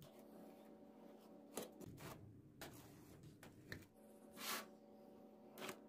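Faint knife work: a kitchen knife cutting a set potato-and-spinach slab into pieces on a steel plate, a few soft scrapes and taps spaced out over several seconds.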